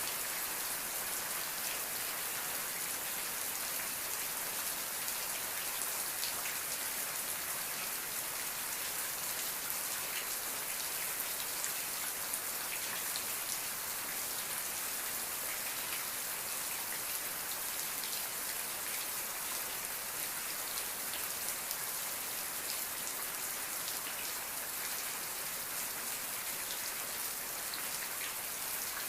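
Steady rain falling, with many small drops pattering on a surface and no thunder.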